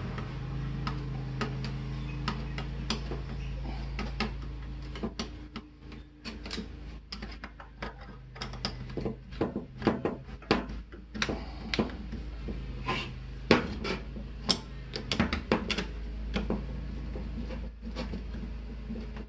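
Bolts on a Bostitch framing nailer being tightened with a hand tool: irregular small metallic clicks and clacks, coming thicker in the middle, over a steady low hum.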